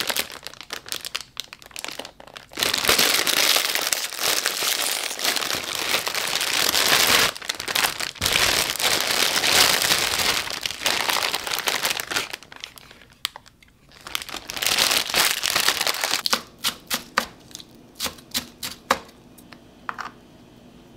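Plastic noodle packaging crinkling and rustling loudly as the bag is handled and opened and its packets are pulled out. Near the end, a quick run of about a dozen sharp taps on a wooden cutting board.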